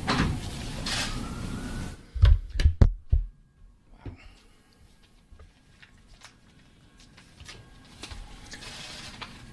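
A rustling noise for about two seconds, then a cluster of loud, low thumps as the podium microphone is bumped and handled, then a quiet room with a few faint clicks.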